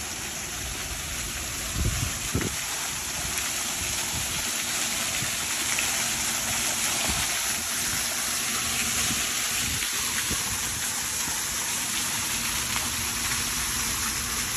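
Garden waterfall splashing into a pond: a steady rushing hiss, with a couple of low thumps about two seconds in.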